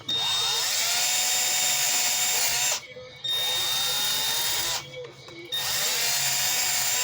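Electric drill fitted with an abrasive wheel, run in three bursts of a few seconds each, its pitch rising as it spins up each time, scouring rust off a cast iron tea kettle.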